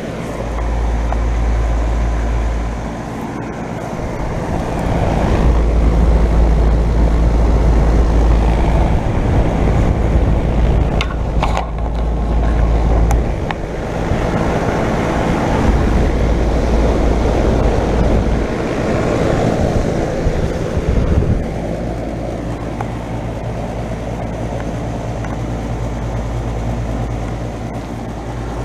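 A 2.5-ton R-22 central air conditioner condenser from 1998 running steadily: a low compressor hum under the rushing of the condenser fan. Deep rumbling swells come and go several times.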